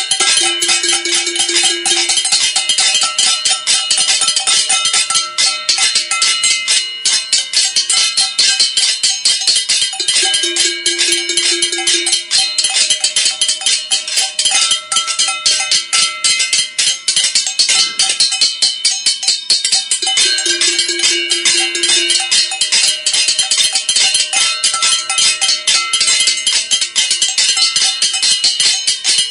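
Many people banging on metal pots and pans at once in a cacerolazo protest: a dense, continuous clatter of metallic strikes, with some pots ringing on in clear tones now and then.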